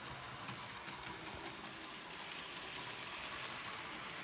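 Hornby 00 gauge model train, Toby the Tram Engine pulling two coaches, running along the track: a steady whirring hiss of its small electric motor and wheels on the rails, getting louder about halfway through as it comes close.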